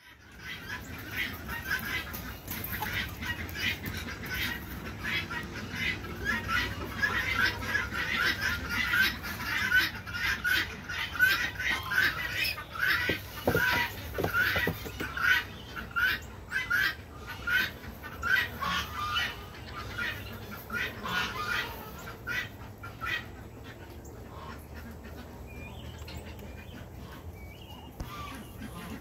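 Poultry squawking in a rapid series of short, harsh calls, about two or three a second, which thin out and fade about three quarters of the way through.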